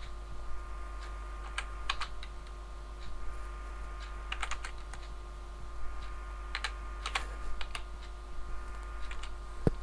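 Computer keyboard typing in short bursts of a few keystrokes every two to three seconds, with a single sharp click near the end. A steady electrical hum runs underneath.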